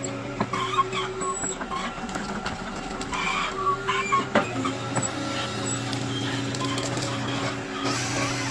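Forestry harvester at work: its engine running steadily, with scattered knocks, clicks and short squeaks from the harvester head and the timber it grips and cuts.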